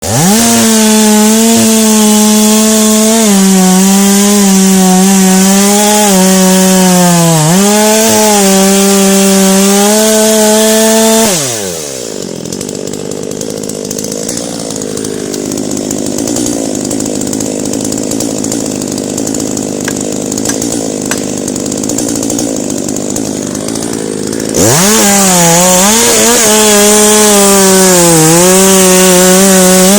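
Two-stroke chainsaw running at high revs and cutting wood, its pitch dipping under load now and then. About eleven seconds in, the revs fall away to a quieter, lower sound. Near the end it is back at full speed.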